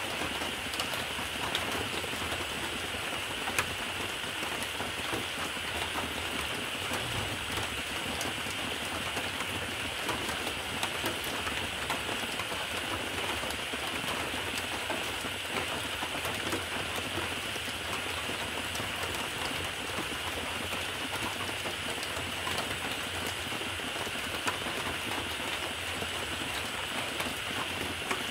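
Steady rain: an even hiss with many small scattered ticks of drops, unchanging throughout.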